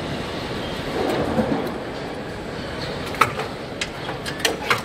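Car assembly plant noise: a steady din of machinery, with several sharp clicks and knocks in the second half.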